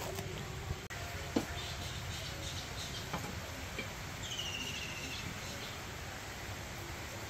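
Steady low outdoor background noise with a few short clicks in the first second and a half as a bottle gourd is sliced against a boti blade. About four seconds in, a bird gives a short, rapid trill that falls slightly in pitch.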